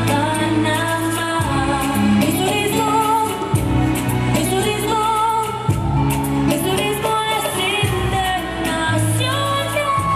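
Dance music with a sung vocal line over held bass notes and a steady percussion beat.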